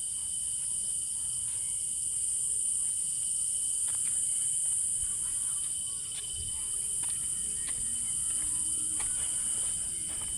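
A steady, high-pitched chorus of insects such as crickets, with a few faint clicks scattered through it.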